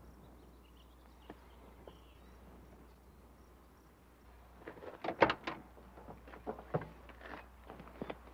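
A quick cluster of knocks and rustles from a man climbing into the seat of an open convertible car, starting a little past halfway, the sharpest knock about five seconds in. Before it, only faint outdoor background with a couple of soft ticks.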